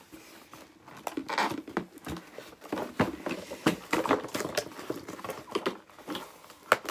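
A doll's packaging box being worked apart by hand: irregular clicks and crackles of the packaging, with one sharper snap near the end.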